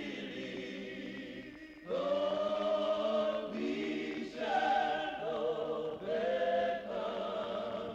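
Choir music: voices singing slow, long-held notes. A fading note fills the first two seconds, then new sustained phrases enter about two seconds in and several more times after.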